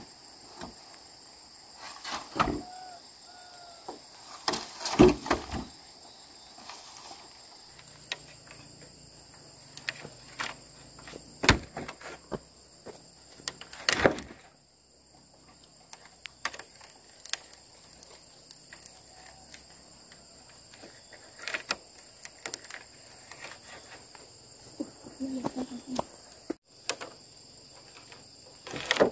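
Green bamboo poles knocking and clattering as they are handled and bound into a bundle, with the loudest knocks about 5, 11 and 14 seconds in. A steady high buzz of insects runs underneath.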